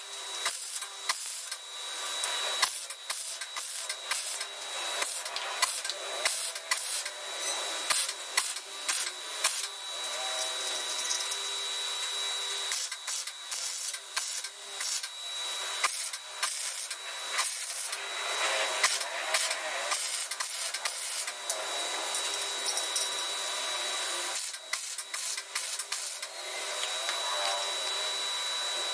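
Power-tool work on metal: a steady high whine and hiss, broken by frequent short clicks and knocks.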